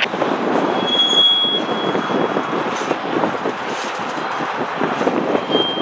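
Freight train cars rolling past: a steady rumble with a rapid, uneven clatter of wheels on the rails. A thin, high wheel squeal sounds briefly about a second in and again near the end.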